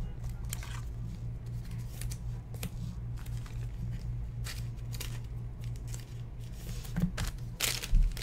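Trading cards being handled: cards sliding against each other and set down on a desk, making soft swishes and light clicks, a little louder near the end, over a steady low hum.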